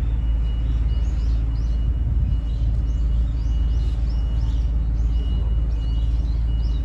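Steady low outdoor rumble with small birds chirping faintly and rapidly over it, about three or four chirps a second.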